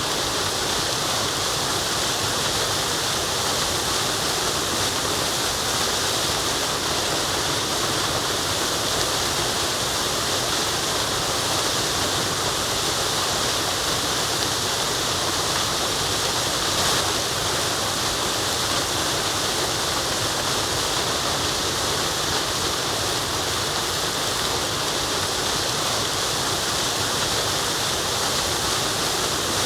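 Waterfall: water falling and rushing in a steady, dense roar of white noise, without pauses or changes.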